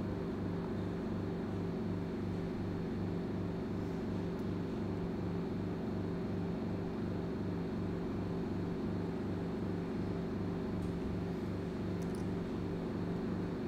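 Steady low machine hum with an even pulsing, a few beats a second, over a faint hiss.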